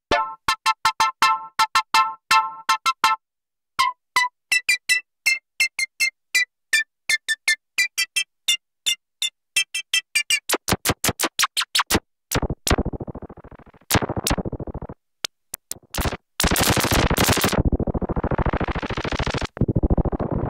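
Novation Circuit Tracks synth engine playing sequenced presets. First comes a pattern of short plucked notes with a brief pause about three seconds in. Past the middle it turns to faster repeated notes and then a dense, buzzy, noisy sound that brightens and darkens in sweeps.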